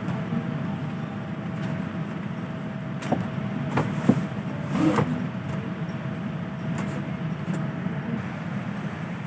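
Steady hum of a Boeing 787-9's cabin air and ventilation on the ground, with a faint constant tone over it. A few clicks and knocks come about three to five seconds in.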